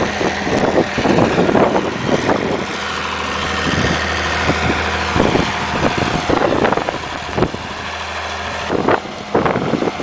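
An engine running steadily at low revs, with irregular gusts of wind buffeting the microphone.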